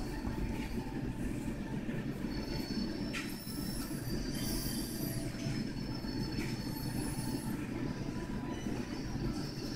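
Colored pencil shading on paper: a steady scratchy rubbing, with a few faint high squeaks about three to five seconds in and again about seven seconds in.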